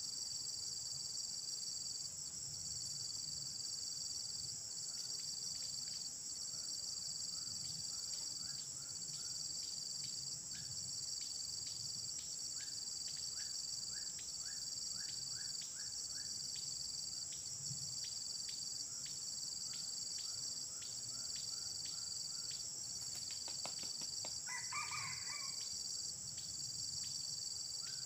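A steady, high insect drone of cicadas or crickets, with runs of short rising chirps. About 24 seconds in, a wild red junglefowl rooster gives one short, clipped crow.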